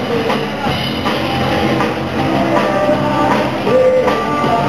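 Rock music with drums and guitar.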